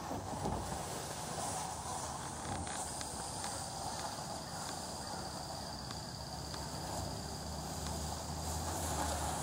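Outdoor background noise: a steady hiss, with a faint high steady insect drone that comes in about three seconds in and fades near the end.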